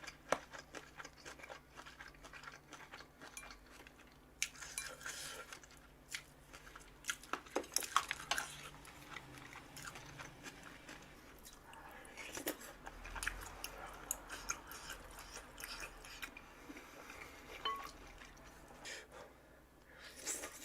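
A person chewing crunchy food, with scattered crunches and occasional clinks of cutlery against dishes.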